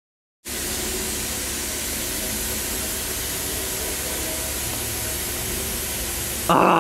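Steady hiss and low rumble of running industrial plant machinery, with a faint hum, starting after a half-second of silence. Near the end a louder sound with several tones cuts in suddenly.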